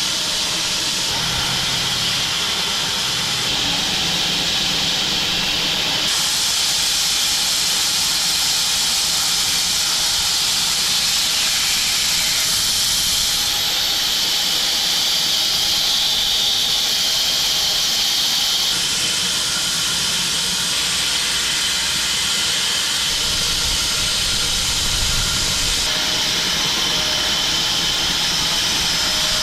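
Home-built 6 ft wide bandsaw mill sawing through an elm log: a steady, loud hissing cut whose tone shifts a little every several seconds.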